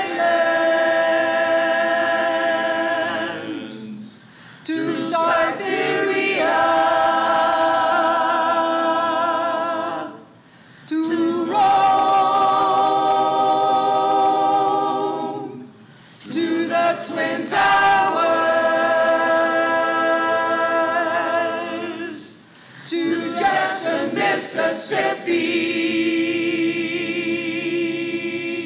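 A mixed group of men and women singing a cappella with no instruments: five long, slow phrases of held notes, each a few seconds long, with short breaks for breath between them.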